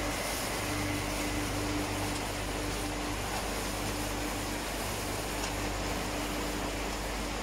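Steady hum and air rush from the electric motors and blower fans of a fruit washing and drying line, with the mesh conveyor running beneath them.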